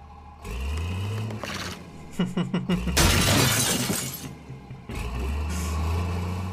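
Cartoon sound effect of a crane's lift platform smashing through a house wall: a motor revs up, then a burst of cracking wood and shattering glass about three seconds in, followed by the motor running steadily.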